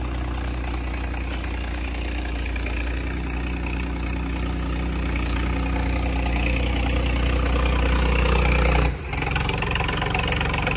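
Diesel engines of a Farmtrac 45 and a John Deere tractor working hard under full load in a tractor tug-of-war, a steady deep drone that slowly grows louder. The sound breaks off for a moment about nine seconds in, then carries on.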